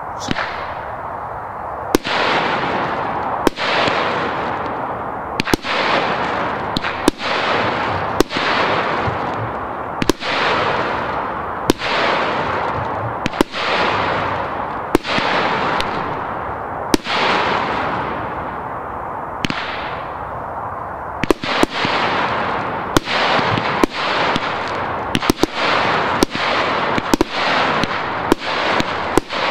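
Cube Fireworks Explosive Box 4 firework cake firing: single shots about every one and a half seconds, each followed by a long hissing trail. About two-thirds of the way in, the shots come quicker and more crowded as the fan sequence begins.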